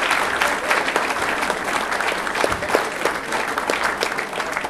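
Audience applauding, the clapping slowly fading.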